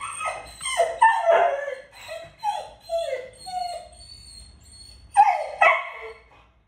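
Dog whining and crying in a run of short calls that fall in pitch, softer in the middle, then two louder cries about five seconds in. The dog is crying because it sees someone at the window it wants to reach.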